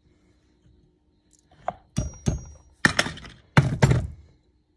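Hammer tapping the pad retaining pins into a Girling-style brake caliper: a string of sharp taps, some in quick pairs, starting about a second and a half in. One tap has a short metallic ring.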